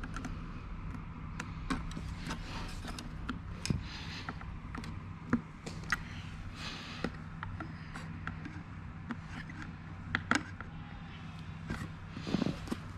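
Scattered light clicks and a few louder knocks of computer hardware being handled and pushed into place, over a steady low hum.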